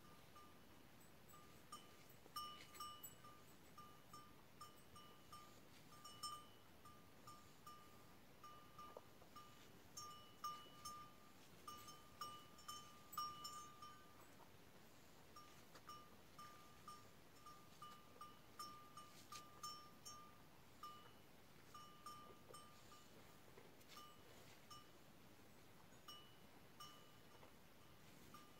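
A small bell on a feeding sheep's or goat's collar clinking faintly and irregularly, many short rings at the same pitch, with a brief lull about halfway.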